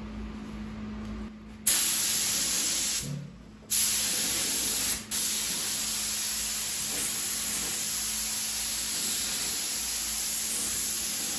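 HVLP spray gun spraying lacquer: a loud, even hiss of air and atomized finish that starts abruptly about two seconds in, stops for about half a second around three seconds, then runs on with only a brief dip near five seconds.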